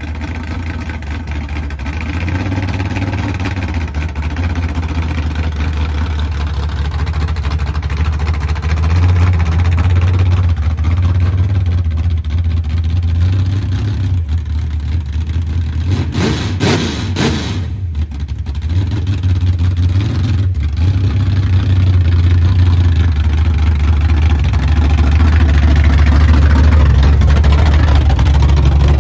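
Square-body Chevrolet pickup's engine running, mostly at idle with light revs. There is a brief louder disturbance with a rising and falling pitch a little past halfway, and the engine grows louder near the end.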